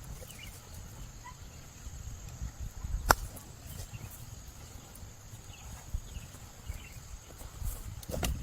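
Outdoor ambience: a low steady rumble with a few faint short chirps, broken by a sharp click about three seconds in and another near the end.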